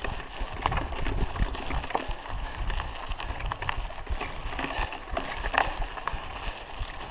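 Raleigh Ascent mountain bike ridden over a rough dirt road: tyres crunching on the gravelly surface, with irregular rattles and knocks from the bike as it goes over bumps. Wind rumbles on the microphone throughout.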